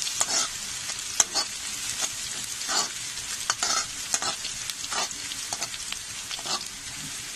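Chopped onion and grated garlic sizzling in hot oil in a kadhai, with a spatula scraping and stirring against the pan at irregular strokes about once a second.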